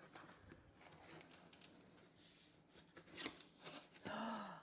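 Faint rustling, scraping and small clicks of a delivery package being opened by hand, with a louder rustle about four seconds in.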